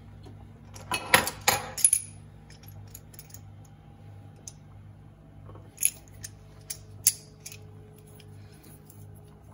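Metal clicks and clinks of a stainless-steel garlic press being picked up, opened and handled: a cluster of sharp clinks about a second in, then scattered single clicks, over a faint steady low hum.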